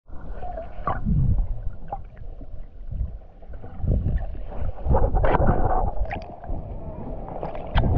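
Water sloshing and splashing with wind buffeting the microphone, in uneven low rumbling surges.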